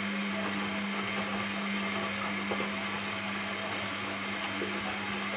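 Indesit washing machine tumbling a wet load of laundry in its drum: a steady low motor hum over the even swish of water and fabric.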